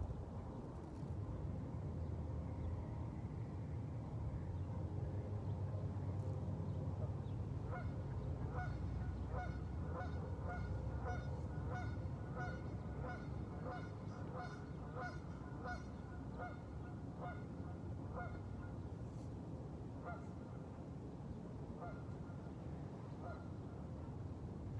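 Geese honking, about two calls a second from roughly eight seconds in, thinning to a few scattered honks in the last third, over a steady low wind rumble on the microphone.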